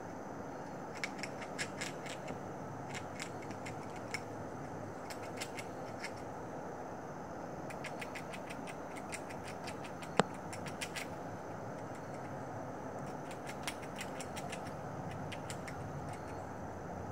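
Grey squirrel gnawing on food held in its paws: bursts of quick, crisp clicks and crunches, with one sharper crack about ten seconds in, over a steady background hum.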